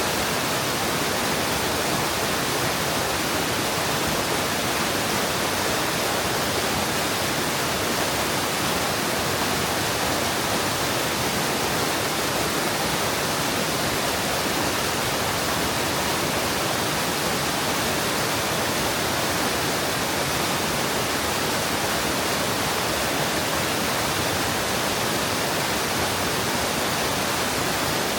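Mountain stream water rushing steadily over rocks and into a pool, an even, unbroken rush.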